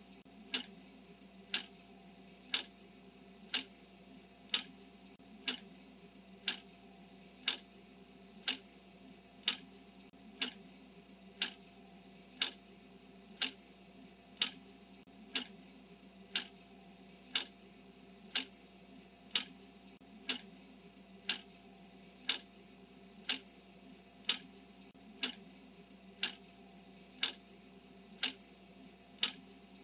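Clock ticking once a second: sharp, evenly spaced ticks counting down the seconds, over a faint steady hum.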